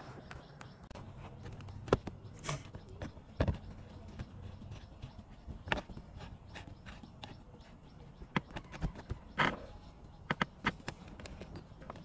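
Scattered light clicks and knocks of a screwdriver and plastic trim being handled around a Proton Wira's manual gear lever console during reassembly, irregular and spaced out, over a faint low background hum.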